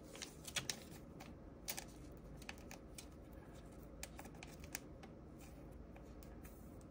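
Trading cards being handled on a tabletop: faint, scattered light clicks and taps as cards are picked up and set down, over a low room hum.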